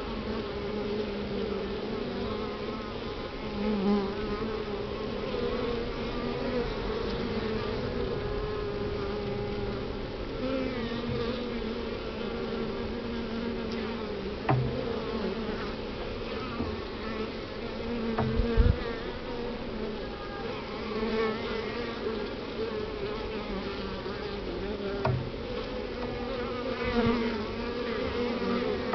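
A honeybee colony buzzing inside a top-bar hive: a steady, dense hum from the mass of bees on the comb, with the pitch of single bees wavering as they fly close. A few short knocks break in, the loudest a low thump about two-thirds of the way through.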